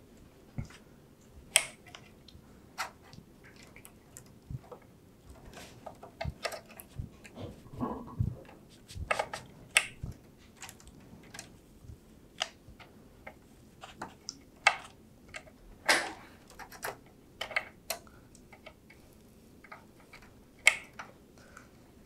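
PCIe power cables and their plastic connectors being handled and plugged into graphics cards: irregular clicks and taps with cable rustle, a few sharper clicks louder than the rest.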